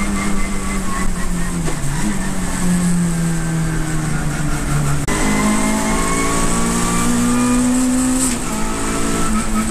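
Race saloon car's engine heard from inside the cockpit. The revs fall in steps as it brakes and downshifts, then climb steadily as it accelerates hard out of the corner. There is a short break for a gear change near the end.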